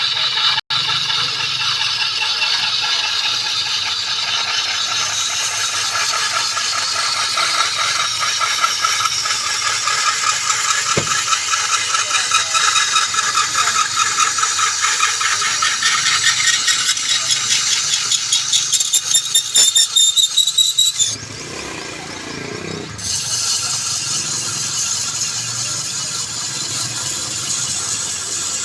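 A metalworking power tool working on steel during the spade repair, a harsh, steady rasping with a rattling pulse. The sound changes abruptly about 21 seconds in, where the work switches.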